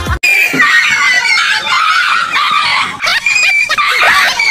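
A frightened dog yelping over and over in short high cries, mixed with people shrieking and screaming.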